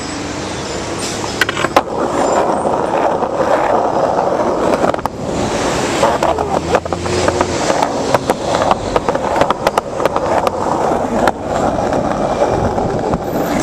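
A convoy of fire engines driving past close by, a loud steady rush of engine and tyre noise on the road, with many sharp crackles over it.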